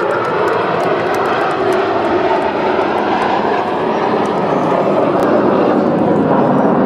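Jet engines of Aermacchi MB-339 aircraft flying over in formation: a steady, loud rushing noise whose pitch slowly falls as they pass, growing a little louder in the second half.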